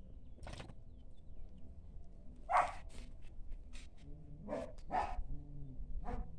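A dog giving a few short, separate barks, the loudest about halfway through.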